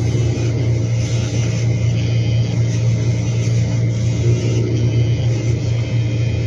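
Handheld electric pet nail grinder running with a steady, even hum, its spinning head grinding down a French bulldog's nails.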